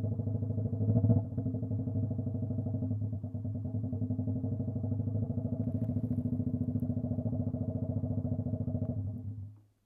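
Honda CB125T motorcycle's parallel-twin engine idling steadily, briefly louder about a second in. Near the end the engine is switched off and dies away.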